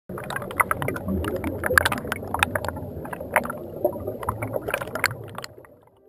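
Choppy sea water splashing and slapping against a kayak, over a low rumble, fading out near the end.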